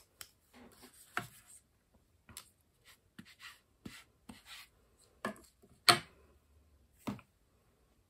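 Clear acrylic stamp block with a rubber stamp being inked on an ink pad and then set down on the card: a series of light taps and clicks. The loudest tap comes about six seconds in, and another follows about a second later.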